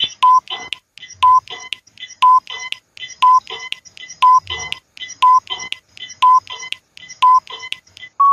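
Countdown timer sound effect ticking: a quick double tick, tick-tock, once a second as the seconds count down.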